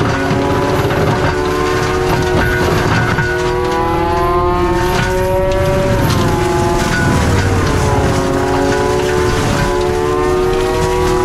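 CAT 259D3 tracked skid steer driving an FAE forestry mulcher head through brush, its diesel and the spinning mulcher drum running loud and steady. A whine rides on top and sags and climbs in pitch a few times as the head works.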